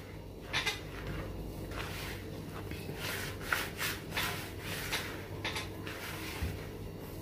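Hands mixing and rubbing crumbly sablé dough and flour in a bowl: a string of soft, irregular rustling swishes, roughly one or two a second, over a faint steady low hum.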